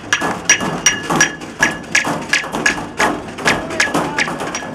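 People pounding a large metal wheeled waste container with their hands as a drum: a fast, slightly uneven beat of about three blows a second, each with a short metallic ring.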